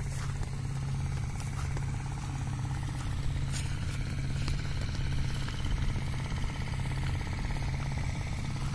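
A small engine running steadily with a constant low hum.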